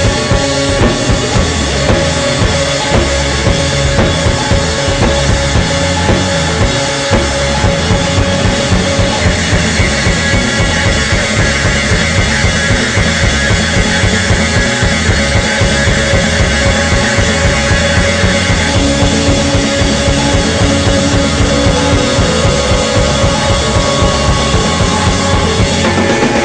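Electronic rock instrumental music with a driving drum-kit beat, bass drum and sustained synth tones.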